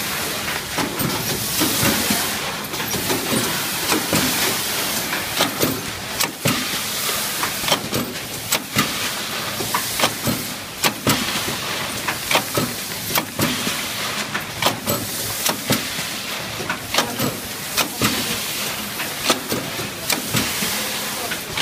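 Auro AMP 500 automatic form-fill-seal pouch packing machine running while it fills and seals pouches of pulses: a steady hiss with sharp mechanical clacks about once or twice a second.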